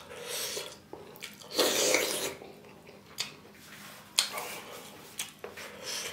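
Close-miked wet eating sounds: a bare hand squishing and mixing rice with curry, with chewing. A few short wet bursts come and go, the loudest about two seconds in, with a few sharp clicks later.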